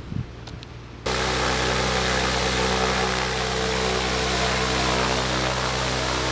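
Cirrus single-engine piston aircraft's engine and propeller running steadily, starting suddenly about a second in.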